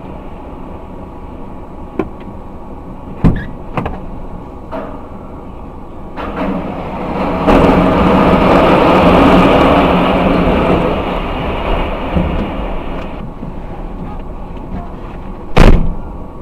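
Heavy machinery running with a steady low rumble, punctuated by a few sharp knocks. A louder rushing noise swells up in the middle and lasts about five seconds, with another loud knock near the end.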